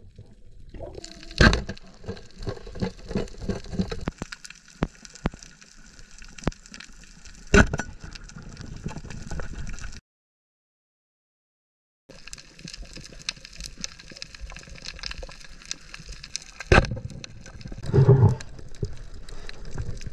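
Underwater sound picked up by a diving camera: water movement and gurgling with scattered clicks and several sharp knocks. It cuts to silence for about two seconds in the middle.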